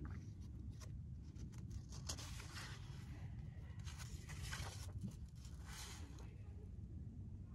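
Faint rustling of paperback book pages, with a page turned about halfway through and a few softer rustles around it, over a low steady rumble.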